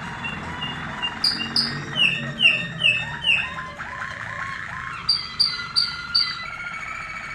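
Caged song canaries singing: repeated downward-slurred whistled notes about three a second, a run of sharp high notes about five seconds in, and a rapid low rolling trill near the end.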